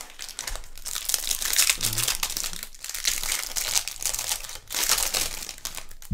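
Clear plastic wrapper of a trading card pack crinkling in the hands as it is opened and the cards are pulled out.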